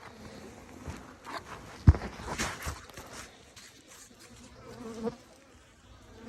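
Honeybees buzzing around an open hive, with sharp knocks and rustling from handling the hive parts; the loudest knock comes about two seconds in.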